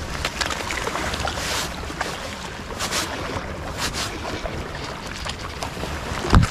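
Small wind-driven waves lapping against shoreline rocks, with wind buffeting the microphone. A few brief swishes come through, and a loud low thump sounds just before the end.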